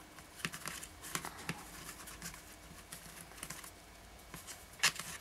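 Soft, irregular clicks and rustles of fingers and fingernails handling thin macramé cord on the work board, with one sharper click near the end.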